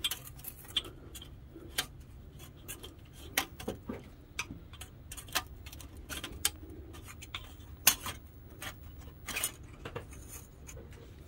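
Small screwdriver clicking and scraping against the steel slide-room tube and its metal shims while the shims are picked out from behind the bearing pad. The light metallic clicks come at irregular moments, a couple of them louder near the end.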